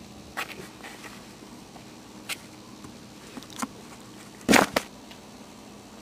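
Maltese puppies moving about and playing: scattered light knocks and taps, with a much louder double knock about four and a half seconds in, over a faint steady hum.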